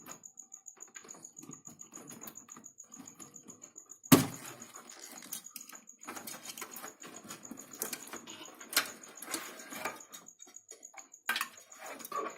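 Hands working inside a desktop PC cabinet, unplugging cables and handling parts: light clicks and rustling, with one sharp knock about four seconds in and a few more clicks later.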